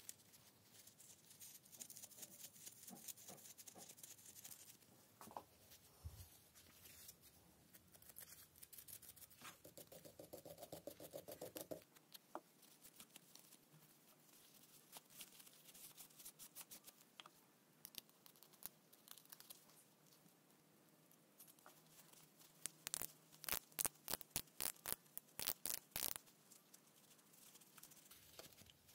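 Faint clicking and scraping of small metal parts as a speedometer gauge and its odometer counter are taken apart by hand, with a quick run of sharper clicks a little past the middle.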